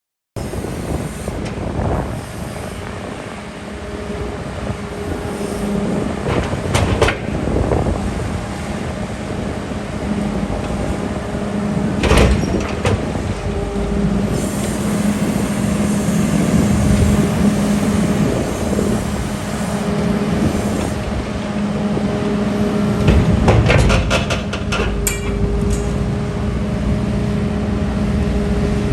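Liebherr A934C's rebuilt diesel engine running steadily, with a few sharp knocks or clanks and a cluster of clicks near the end.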